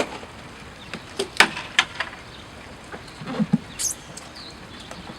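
A scattered run of sharp knocks and clatters, then a couple of dull thuds near the middle. A single short, high chirp follows.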